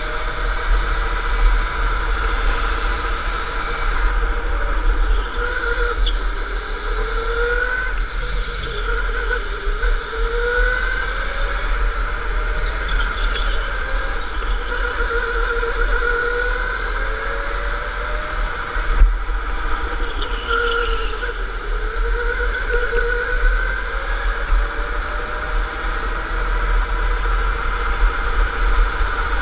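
Electric go-kart motor whining, its pitch climbing again and again as the kart accelerates and falling back between, over a steady low rumble. A couple of brief high squeals cut in, near the middle and about two-thirds of the way through.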